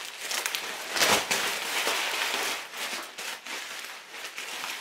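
Plastic packaging and bubble wrap rustling and crinkling as it is unwrapped by hand, in irregular crackles that are loudest about a second in.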